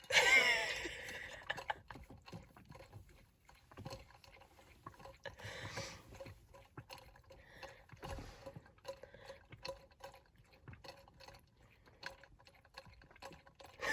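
A dog lapping water from inside an open water bottle: a long run of small, irregular wet clicks and slurps. A person's voice rises briefly in the first second or so.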